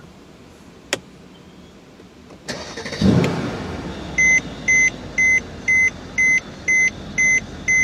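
A 2014 Mercedes-Benz E63 AMG S's twin-turbo V8 starting, heard from inside the cabin: a click about a second in, then the engine cranks and fires at about three seconds, flares and eases back to a steady idle. From about four seconds a car's warning chime beeps about twice a second over the idle.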